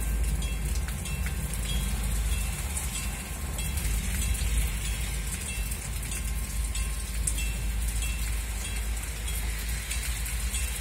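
Steady rain pattering on wet ground and surfaces, with a low rumble of wind on the microphone. A departing passenger train fades away in the distance.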